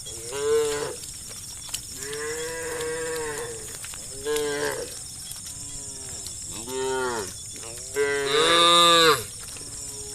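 Cows mooing: about five separate moos, each rising then falling in pitch, with the one near the end the loudest and longest.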